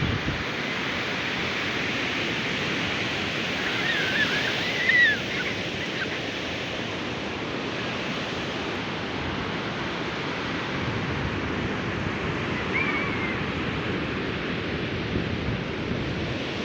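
Ocean surf breaking on a beach: a steady wash of waves, with a couple of brief faint distant calls, one about four seconds in and another past the middle.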